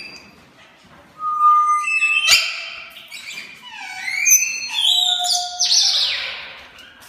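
African grey parrots whistling and calling: a held whistled note about a second in, then a string of rising and falling whistles mixed with harsher squawky calls.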